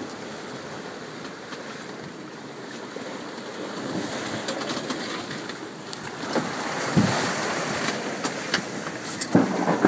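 Rough sea rushing and breaking along the hull of an Albin Vega sailboat under way, with wind. The rush grows louder from about the middle, with a couple of short knocks near the end.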